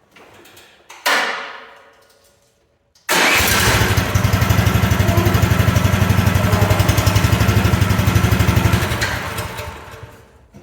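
A brief sharp noise, then the mini excavator's 420cc single-cylinder petrol engine starts about three seconds in and runs loudly with an even pulsing beat. It winds down and stops near the end.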